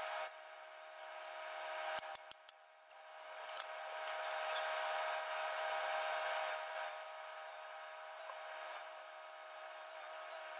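Cutting torch slicing through the steel rim of a compost trommel drum: a steady hiss with a hum. It breaks off briefly about two seconds in with three sharp clicks, then starts cutting again.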